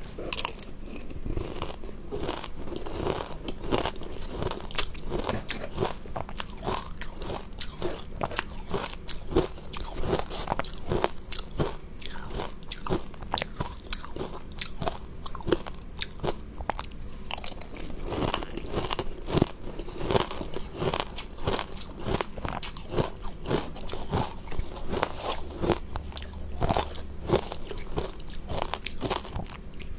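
Close-miked crunching and chewing of crushed ice topped with pomegranate seeds and grains, bite after bite in an irregular stream of sharp crunches.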